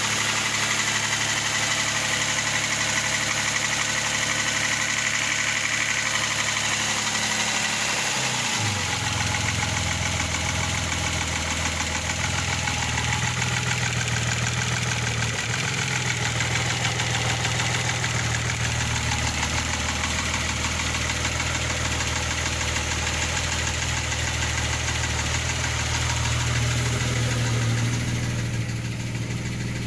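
Opel Omega B V6 engine idling steadily, with the knocking that the owner takes for a knocking piston. Its note dips briefly and recovers about eight to nine seconds in.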